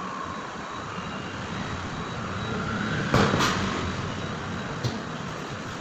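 A few sharp knocks from a fish being cut on a wooden block, a pair about three seconds in and one more near the end, over steady background noise.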